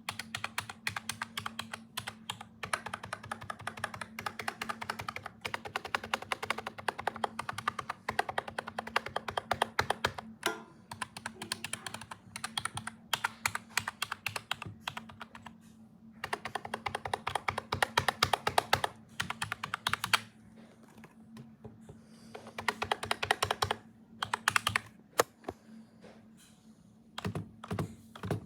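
Computer keyboard being typed on fast, in bursts of rapid keystrokes several seconds long broken by short pauses, over a steady low hum.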